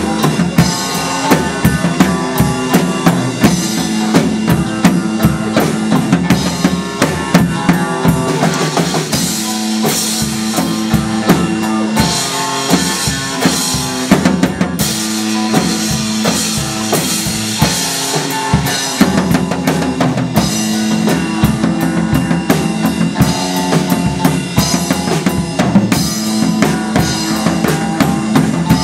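A band playing music, the drum kit loud with steady kick and snare hits under sustained pitched instruments.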